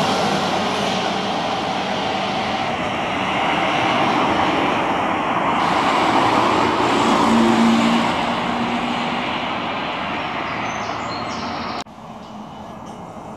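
Street traffic noise from road vehicles on a city street: a steady rush of tyre and motor noise that swells to its loudest about seven to eight seconds in, with a brief low hum, then drops suddenly to a quieter level near the end.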